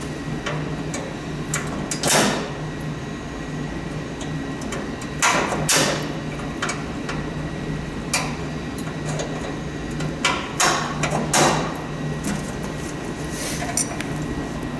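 Irregular metallic clinks and knocks from hand-working a retaining clip on a snowblower part, with about five louder clatters spread through.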